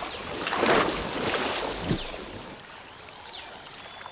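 Water splashing and sloshing as tigers move about in a waterhole, loudest about a second in and dying away after two and a half seconds. A few short, high, falling chirps follow.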